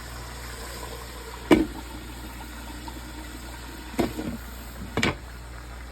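Chicken frying in oil with a steady sizzle. Three sharp knocks come through it, about a second and a half in, then at about four and five seconds; the first is the loudest.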